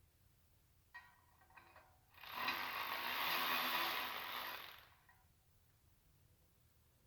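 A click, then a ratchet wrench clattering rapidly for about two and a half seconds as it backs nuts off a bolt.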